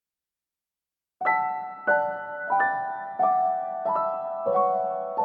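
Background music: a slow piano melody of single struck notes, each ringing out, beginning about a second in.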